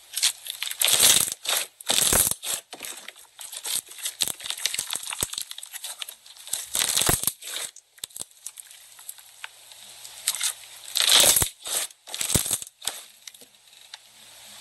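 Crunchy slime being squeezed and pulled apart by hand, crackling and clicking, loudest about a second in and again around eleven seconds.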